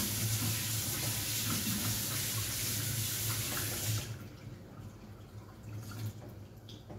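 Kitchen tap running into the sink as she washes up, shut off about four seconds in. A few faint clinks follow.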